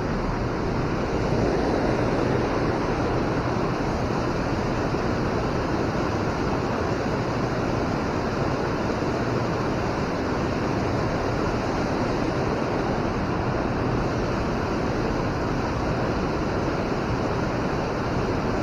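Steady rush of flowing river water: an even hiss with no breaks.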